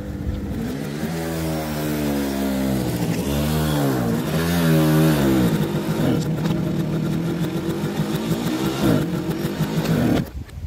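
Motorcycle engine revving up and down several times, then running steadier before cutting off abruptly near the end.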